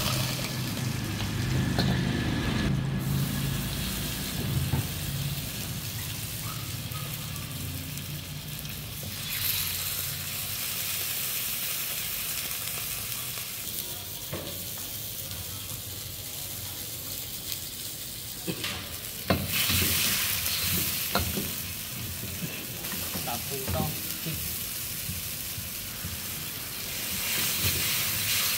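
Food sizzling in hot oil in a wok, with a metal ladle stirring and knocking against the wok and strainer. There is a low rumble in the first few seconds, the sizzle gets louder about ten seconds in and again near the end, and a scatter of sharp ladle clanks comes through the middle.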